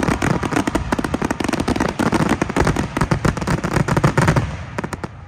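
Fireworks going off in a dense, rapid run of bangs and crackles that thins out about four and a half seconds in, leaving a few scattered pops.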